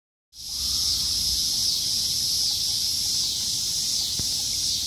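Steady, high-pitched chorus of insects, with a low rumble underneath and a single faint click about four seconds in.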